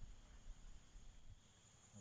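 Near silence: a faint low rumble with a faint steady high-pitched tone.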